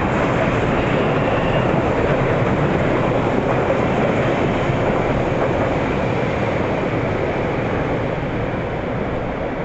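MBTA Commuter Rail train going by close, a steady loud rumble of wheels on rails that slowly eases off toward the end.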